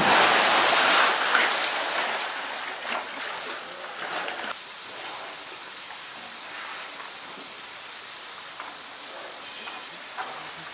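A polar bear's splash into a pool: water crashing and spraying, dying away over about two seconds, then water lapping and sloshing as the bear swims, with a few small splashes.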